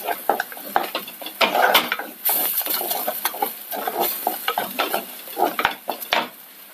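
Wooden spatula stirring and scraping thick ground-coconut masala paste around an earthenware clay pot, in irregular strokes. Under it, a light sizzle as the paste sautés in coconut oil.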